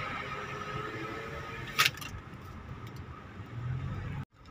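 Steady low rumble of road and engine noise inside a moving car. There is one sharp click a little under two seconds in, and the sound cuts out completely for a moment near the end.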